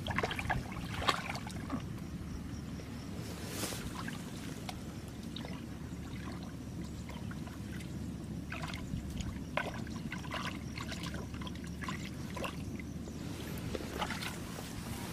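Hands sloshing and splashing in shallow muddy water, a scatter of short wet splashes, over a steady low rumble of wind on the microphone.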